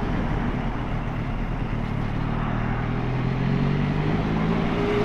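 Benelli Leoncino 500's parallel-twin engine running as the motorcycle rides in traffic, over a steady rush of wind and road noise. From about two seconds in, the engine note comes up and rises slowly as it pulls.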